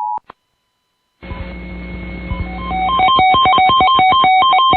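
A two-tone EAS attention signal cuts off at the very start. After about a second of silence, a hissy, humming audio line opens, and from about three seconds in a rapid string of short telephone touch-tone (DTMF) beeps plays over it.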